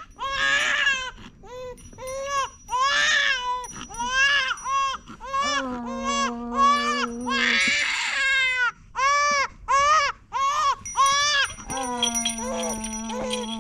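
Swaddled infant crying in a cradle: a run of short, high wails about two a second, with one harsher scream about eight seconds in. A woman's voice holds long, low notes under the cries, once in the middle and again near the end.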